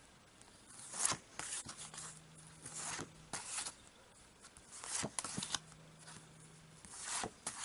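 Printed cardboard photocards slid one by one across a small stack in the hands: a series of short, soft papery swishes and flicks.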